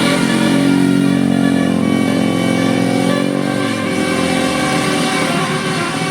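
A bus engine passing close. Its drone drops in pitch and fades about three and a half seconds in, with steady higher tones sounding over it.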